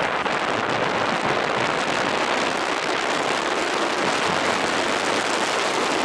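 Steady rushing noise of wind and tyres on sand as a Honda CBR929RR Fireblade sport motorcycle rides across a beach.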